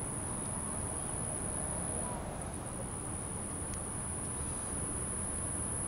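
Steady, high-pitched shrill of insects, over a faint low rumble from the twin piston engines of a Cessna 402C at takeoff power during its roll.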